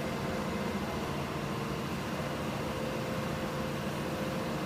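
Excavator engine running steadily, a constant low hum with faint steady tones above it and no clear knocks or impacts.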